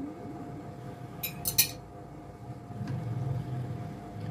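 Three quick clinks of a kitchen utensil against a bowl about a second and a half in, as potatoes are added, over a faint steady hum.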